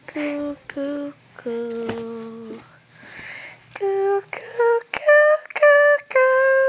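A woman singing a slow, lullaby-like tune in short held notes, with one longer note about one and a half seconds in.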